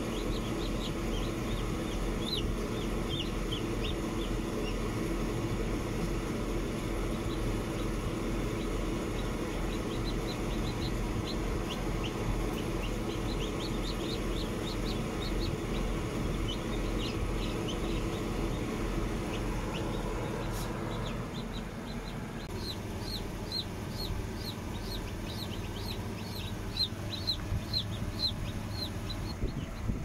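Newly hatched chicken chicks peeping, short high cheeps scattered at first and then a steadier run of two or three a second in the last third, over the steady hum of the incubator's fans.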